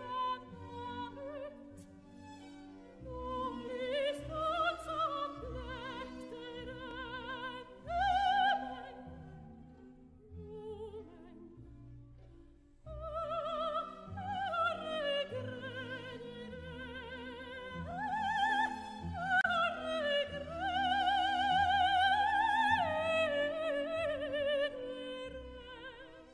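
Operatic soprano singing with strong vibrato over soft instrumental accompaniment, in phrases; after a lull the voice returns about halfway through and holds long high notes, fading out at the end.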